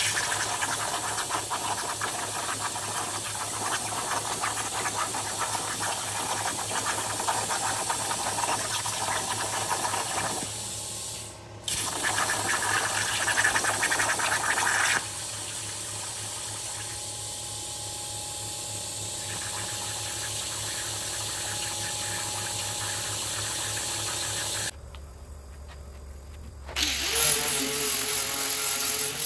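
CNC plasma cutter torch cutting steel plate: a steady hissing, crackling rush that breaks off briefly about eleven seconds in and runs on quieter later. Near the end, a 4-inch angle grinder with a flap disc spins up and grinds steel with a steady whine.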